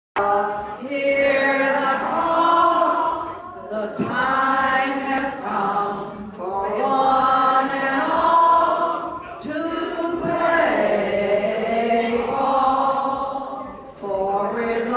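An elderly woman singing into a microphone, in phrases a few seconds long with short breaks between them.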